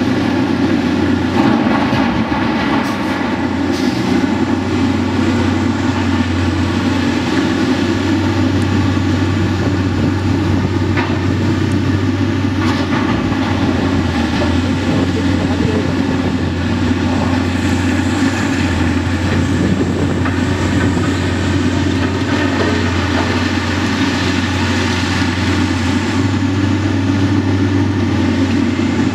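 Heavy engines of a Demag H95 hydraulic face shovel and a FAUN K85.5 dump truck running steadily and loudly as the shovel digs and swings to load rock, with a few faint clicks and knocks.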